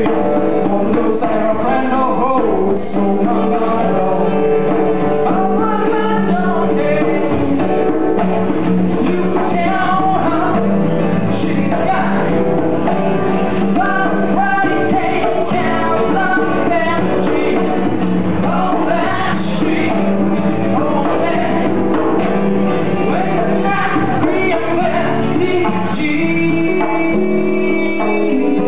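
Live acoustic song: two acoustic guitars playing, with a hand drum and a lead voice singing over them.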